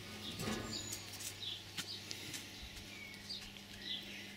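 Faint bird chirps, a few short calls scattered through, over a low steady hum, with a few light clicks.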